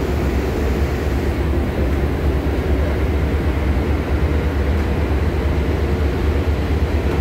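Steady low drone of a passenger ferry's engines while under way.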